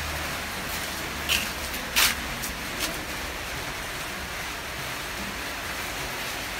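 Steady background hiss broken by three short clicks or knocks between about one and three seconds in, the middle one the loudest.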